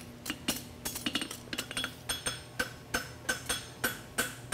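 Hand hammer striking a red-hot steel concave horseshoe on an anvil, a steady run of about three to four blows a second, each with a short metallic ring. The farrier is forging the shoe's heel down into a wedge.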